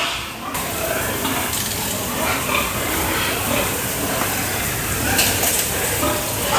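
Pig pen noise: a steady jumble of rustling and shuffling with a few short clinks and faint animal sounds.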